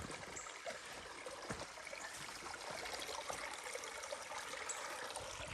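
Small forest creek flowing and trickling in a steady, even rush of water, with a few faint ticks.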